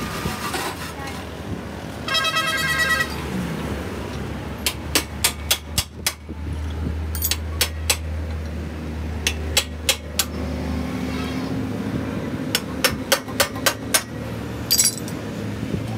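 Runs of sharp metal taps and knocks, several strikes in quick succession, from hand tools working on the steel shell of a refrigerator compressor clamped in a vise. A machine hums low underneath through the first part.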